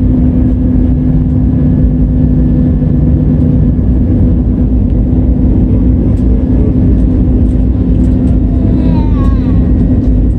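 Airbus A320 cabin noise: a loud, steady rumble of engines and airflow with a constant hum.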